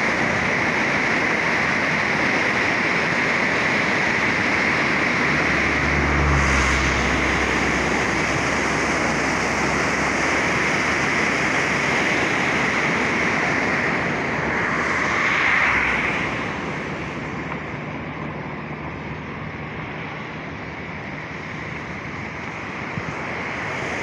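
Muddy floodwater rushing and churning in a swollen torrent after heavy rain: a steady, loud rushing of water. Low buffeting from wind on the microphone comes around six seconds in, and the rushing grows a little quieter in the last third.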